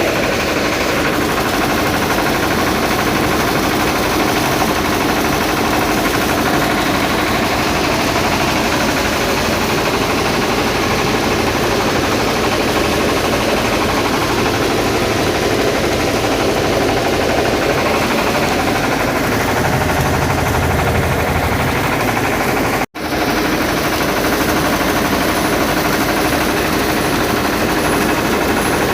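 Engine-driven rice-processing machine running steadily and loudly, with a dense, even mechanical clatter; the sound drops out for an instant about 23 seconds in.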